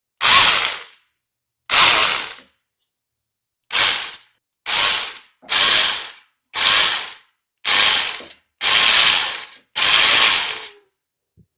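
Faulty Hilti-type rotary hammer drill run in about nine short grinding bursts, each cutting in sharply and dying away, coming closer together and lasting longer near the end. The owner puts the fault in the motor's carbon-brush holders and a damaged pinion gear.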